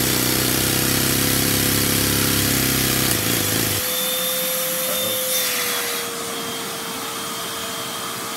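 A Lego overhead-valve vacuum engine, powered by a vacuum cleaner's suction, runs fast over the vacuum cleaner's steady whine. About four seconds in, the engine stops as its loose timing gear slips off the axle, leaving the vacuum cleaner running alone.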